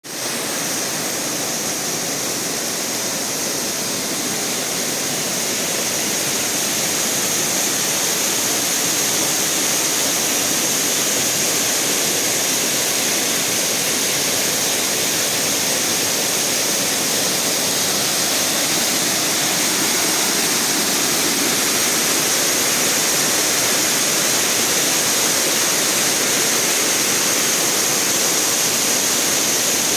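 Waterfall on the Molinar river: steady rushing of falling water, a little louder after the first several seconds.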